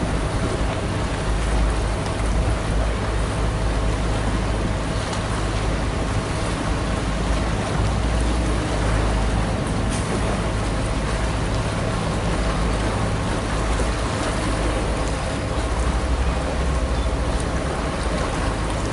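Gusty wind buffeting the camera microphone in a steady, fluctuating low rumble, with a faint steady hum underneath.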